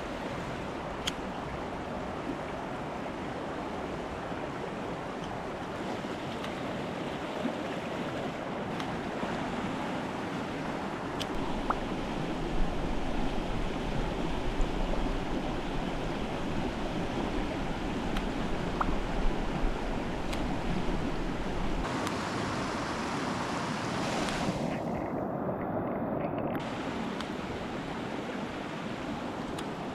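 Mountain stream water rushing steadily, with a few faint clicks over it.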